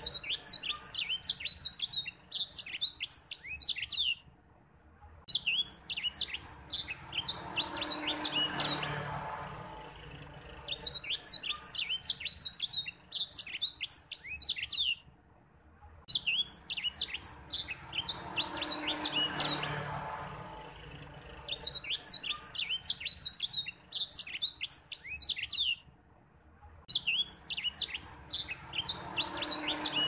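White-rumped seedeater (grey singing finch) singing: long, fast, high-pitched twittering phrases of quick chirps and trills, each four to five seconds long, with pauses of about a second between them.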